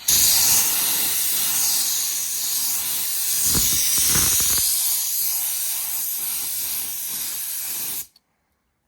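Spray gun spraying 2K clear coat onto a plastic headlight lens: a steady, loud hiss of atomised paint and air that starts abruptly and cuts off suddenly after about eight seconds, with a brief dip near the middle. This is the second coat, put on fairly thick.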